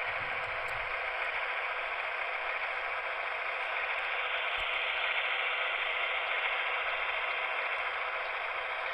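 HO-scale GE AC6000 locomotive model's DCC sound decoder playing diesel engine sound through the model's small onboard speaker: a steady, thin running sound with almost no low end, swelling a little near the middle.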